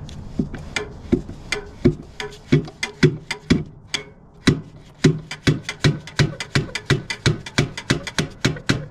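A long run of sharp knocks, uneven at first and then steady at about two to three a second, as the Detroit Diesel 12V71's shutoff linkage, stiff from long disuse, is worked free.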